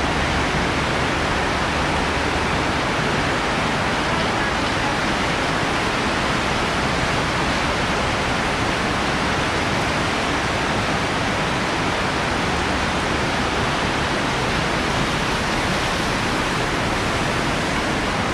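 Heavy rain pouring down in a steady, dense hiss on the roofing and wet pavement, with water running and splashing.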